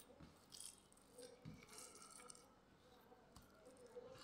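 Faint, irregular squelching of hands kneading wet seasoned minced chicken on a stainless steel tray.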